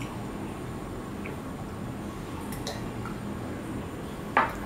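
Fingers working rice on a steel plate, with a few faint small clicks, then near the end a drinking glass is set down with one sharp clink on a glass tabletop.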